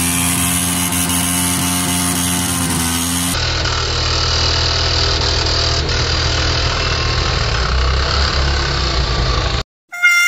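A vehicle engine running steadily. About three seconds in there is a cut to a second recording with a deeper rumble, which cuts off suddenly near the end.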